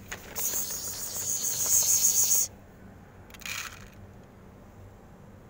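A loud, high insect buzz lasting about two seconds that cuts off suddenly, then a second, shorter burst about a second later.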